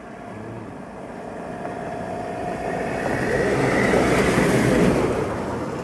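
A motor vehicle driving past close by: a rushing noise of engine and tyres swells to a peak about four to five seconds in, then fades.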